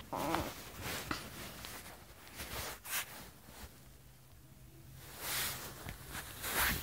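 Soft rustling of clothes and movement as someone changes clothes, with a few sharp knocks and brief fabric swishes, the loudest near the end.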